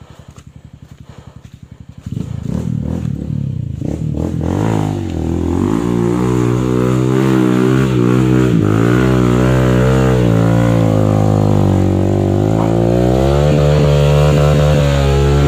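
Dirt bike engine idling with an even pulse, then revved hard about two seconds in and held at high revs, the pitch rising and falling as the throttle is worked.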